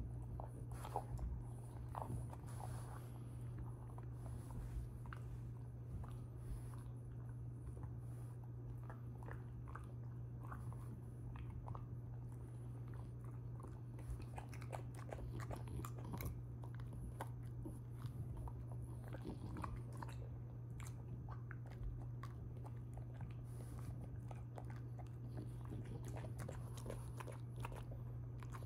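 French bulldog chewing and crunching food, a long run of small irregular crunches and mouth clicks, over a steady low hum.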